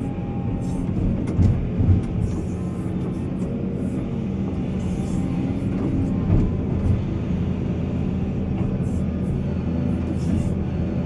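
Diesel engine of heavy earthmoving machinery running steadily, with a few heavy thumps about one and a half to two seconds in and again a little past six seconds.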